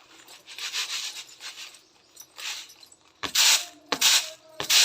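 Rhythmic scraping or rubbing strokes, soft at first, then loud and regular, about one and a half strokes a second, in the last second and a half.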